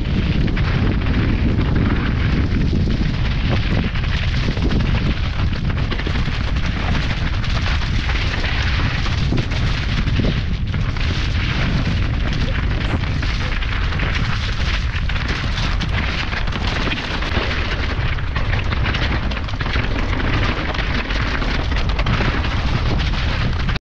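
Loud, steady wind rumble buffeting the camera microphone during a fast mountain-bike descent.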